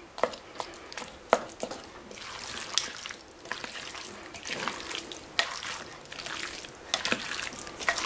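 A plastic spoon stirring and breaking up a thick, wet mix of ground beef, diced potatoes, corn and cream of mushroom soup in a slow cooker crock: squelching, with irregular scrapes and knocks of the spoon against the crock.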